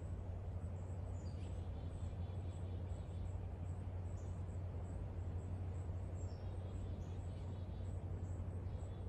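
Garden ambience: a steady low rumble with faint, short bird chirps scattered through, including a few quick falling chirps.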